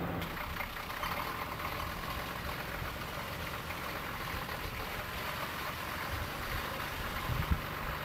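Car engine and road noise heard from inside a moving car, with a short bump near the end.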